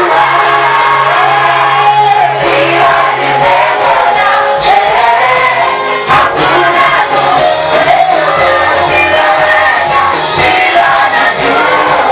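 Gospel praise and worship music: several voices singing a melody over held bass notes from the accompaniment.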